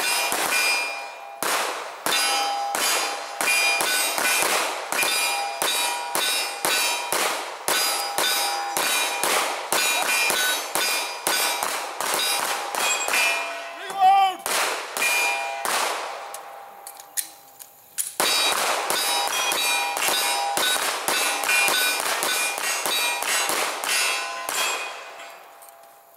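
Rapid pistol fire, shot after shot, with hits on steel targets ringing out as clangs. The firing stops for about two seconds past the middle, then picks up again and tapers off near the end.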